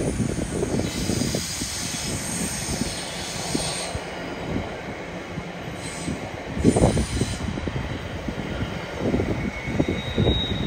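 A train running past on the main line, its wheels rumbling over the rails with irregular knocks and a hiss of wheel noise; the loudest knock comes about seven seconds in.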